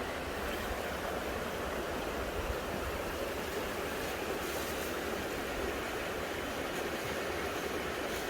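Creek water running steadily, with a low rumble of wind underneath.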